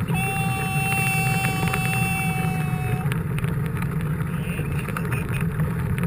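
Wind rushing over a bike-mounted action camera's microphone, with rolling noise from a mountain bike in motion. A steady high-pitched tone sounds for about the first three seconds, then stops.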